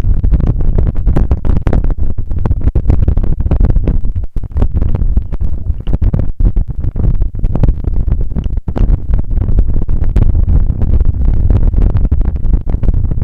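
Loud, continuous low rumble with constant rattling knocks, picked up by a handlebar-mounted Mobius action camera jolting over a forest trail, with wind buffeting the microphone.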